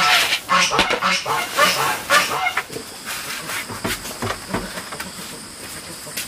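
Ducks quacking in a rapid series, about three calls a second, loud for the first two and a half seconds and then fainter. A steady high insect drone comes in behind them.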